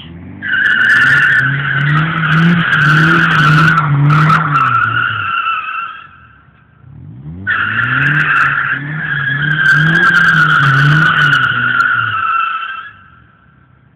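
Nissan 200SX drifting: tyres squealing loudly in two long passes of about five to six seconds each, with the engine revving hard under the squeal and rising in pitch at the start of each pass.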